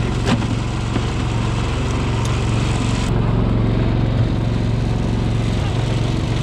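Lobster boat's engine running steadily, a low, even drone that holds at one speed, with a few light knocks from handling gear on deck.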